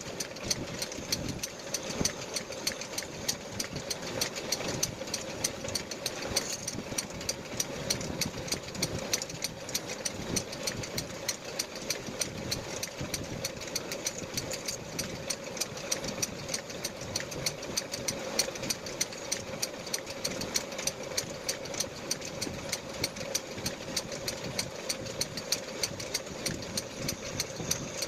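Metal lathe running with a steady hum and a rapid, even ticking.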